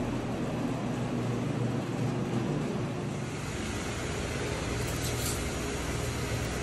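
A machine running with a steady drone and hum, with a deeper low rumble joining about three and a half seconds in.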